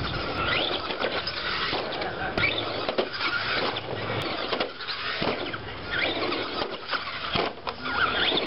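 Traxxas Rustler electric RC truck's motor and drivetrain whining, the pitch repeatedly rising and falling in short squeals as the throttle is punched. Tyres hiss through dry grass and dirt.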